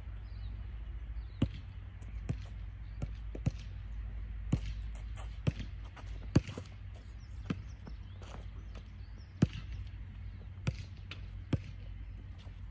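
A basketball bouncing on an outdoor hard court as it is dribbled and shot, about a dozen separate sharp bounces at uneven spacing, roughly one a second, over a steady low rumble.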